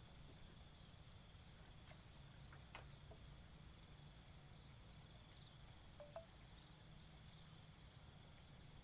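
Faint steady insect chorus, crickets trilling in thin high unbroken tones. A soft click comes about three seconds in, and a short faint chirp about six seconds in.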